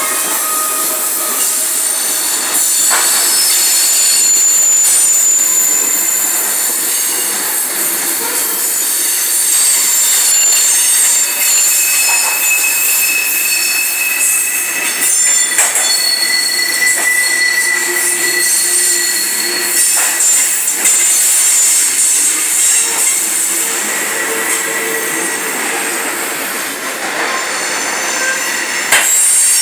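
Loaded coal hopper cars rolling slowly past, their wheels screeching loudly: several high-pitched squealing tones that come and go and shift in pitch, over the steady rumble and clatter of the cars.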